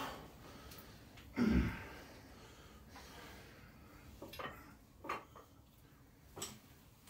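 A person breathes out heavily once, about a second and a half in. A few faint clicks and knocks follow later.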